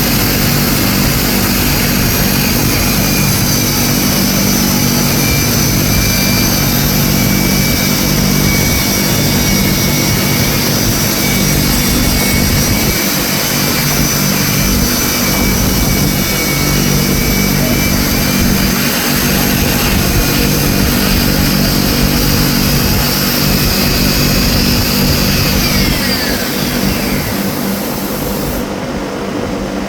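Worm drive circular saw running at full speed, cutting through stacked plywood sheets with a steady, high motor whine. Near the end the whine falls in pitch as the saw winds down after the cut.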